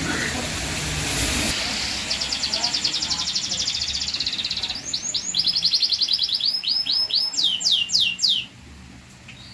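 Domestic canary singing. After a hissy opening, it runs a fast trill of repeated high notes, then a series of slower downward-sliding notes ending in four long sweeps. The song breaks off about a second before the end.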